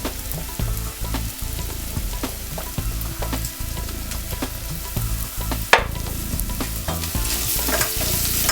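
Onions, garlic and ginger frying in oil with freshly added ground spices, sizzling in the pot while a spoon stirs and scrapes against it in many small clicks. One sharper knock comes a little more than halfway through.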